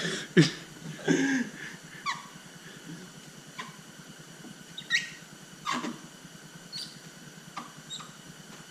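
Paint protection film being worked over the truck's paint by hand, giving a string of short, scattered squeaks about a second apart as the film is pushed and stretched into a hole.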